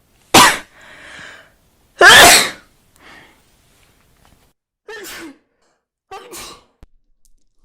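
A woman sneezing: two loud sneezes about a second and a half apart, then two softer sneeze-like bursts about five and six seconds in.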